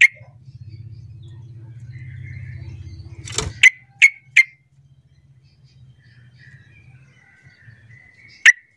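Yellow-vented bulbul giving short, sharp call notes: one at the start, three in quick succession about three and a half seconds in, and one more near the end. A low droning hum runs under the first three and a half seconds.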